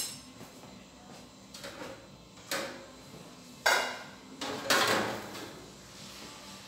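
Kitchenware clinking and knocking: a handful of separate sharp knocks of a drinking glass and metal pans, the loudest two a little past the middle.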